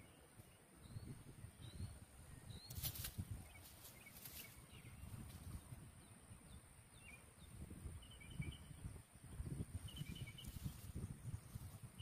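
Quiet outdoor ambience: a low rumble throughout, a scatter of short faint high chirps, and two brief rustles of dry leaves, about three and four and a half seconds in.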